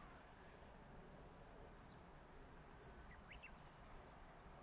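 Near silence: faint low background noise, with a small bird giving a brief call of three or four quick chirps about three seconds in.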